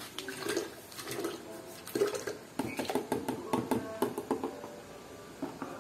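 Salt being poured and shaken out of a plastic tub into a plastic jug of water: a dry patter of grains with many scattered small clicks.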